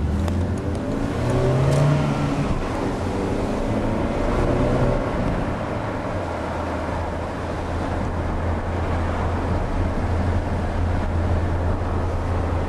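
Car engine and road noise heard from inside the cabin while driving: the engine note rises over the first few seconds as the car gathers speed, then settles into a steady low drone.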